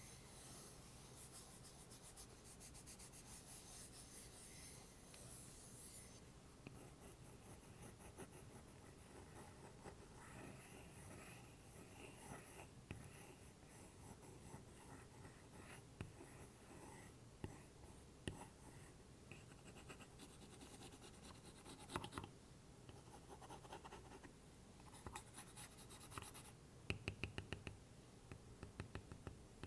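Faint, close-up scratching on a wooden block, then from about six seconds in an Apple Pencil scratching and tapping on the block, with a quick run of taps near the end.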